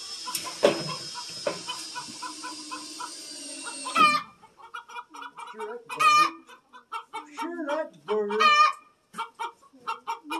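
A chicken clucking in a quick, steady run of short notes, broken by louder drawn-out calls about four, six and eight seconds in. A couple of sharp knocks sound near the start.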